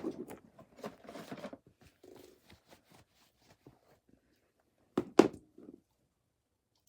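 Soft rustling and light clicks of things being handled, with two sharp knocks about five seconds in.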